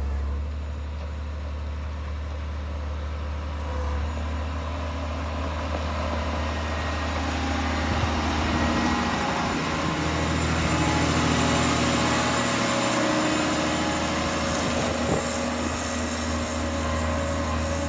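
Motor grader engine running with a steady low drone, getting somewhat louder around the middle.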